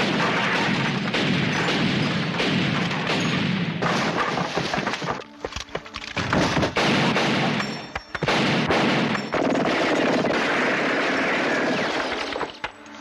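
Film-soundtrack gunfight: rapid, dense gunfire with crashes and booms, breaking off briefly about five seconds in and again just before the end.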